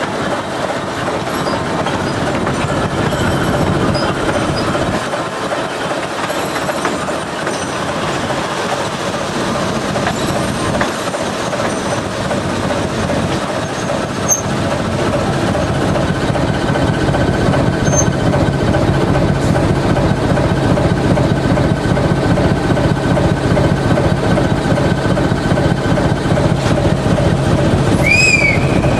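TEM2 diesel shunting locomotive running along the track, heard from its cab: steady six-cylinder diesel engine noise with wheels clicking over the rail joints, growing a little louder about halfway through. A brief high squeal comes near the end.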